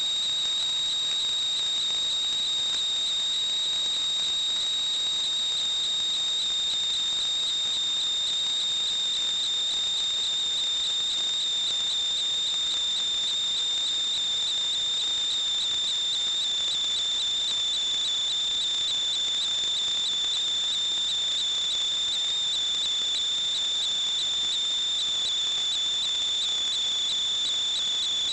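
A steady high-pitched whistle: one unbroken tone with a fainter higher overtone, sinking very slightly in pitch.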